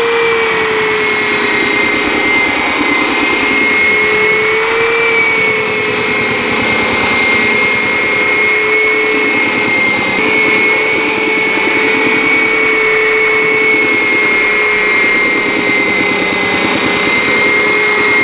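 Handheld electric belt sander running steadily with a high motor whine, wavering slightly in pitch as it is pushed back and forth with the grain across a hardwood cutting board for rough sanding.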